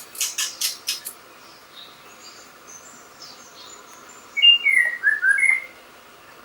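White-rumped shama singing: a quick run of sharp clicking notes in the first second, then a loud phrase of clear whistled notes that bend up and down about four and a half seconds in.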